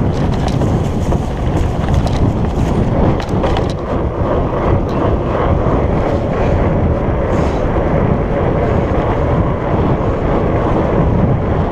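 Wind noise on the microphone while riding a Surly Moonlander fat bike off-road, with the rumble of its 4.8-inch Surly Knard tyres over rough ground. There are a few clicks or rattles in the first half.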